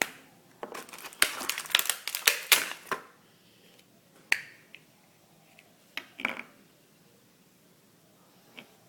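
Plastic toy packaging being handled: a dense run of crackling and clicking for about two seconds, then a few separate clicks.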